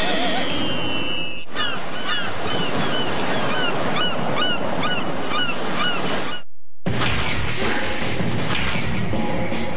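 Nickelodeon TV bumper sound effects: a falling whistle, then a quick run of short squeaky chirps, about three a second, over a steady rushing noise. It cuts off abruptly about six seconds in, and a different soundtrack starts under the Nickelodeon Movies logo.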